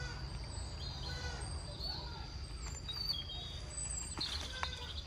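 A few short bird chirps over a steady low outdoor rumble and a thin, steady high-pitched whine.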